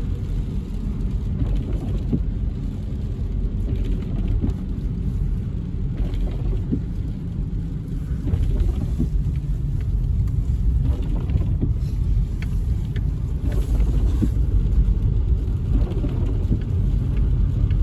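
Steady low rumble of a car driving on a wet road, heard inside the cabin, with scattered taps of raindrops on the windshield.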